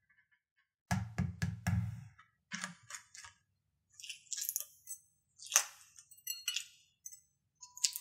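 Hard-boiled egg tapped sharply about five times in quick succession against a hard surface, cracking its shell. After a few smaller clicks, the broken shell crackles and crunches as the fingers peel it away.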